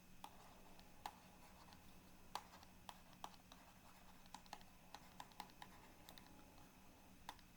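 Faint, irregular light clicks and taps, about twenty spread unevenly, over quiet room tone with a faint steady hum.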